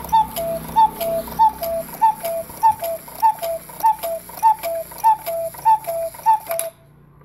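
Antique German three-weight cuckoo clock's bellows pipes calling cuck-oo, a higher note then a lower one, about a dozen times in steady succession as the clock strikes the hour, each call with a click from the movement. The calls stop near the end.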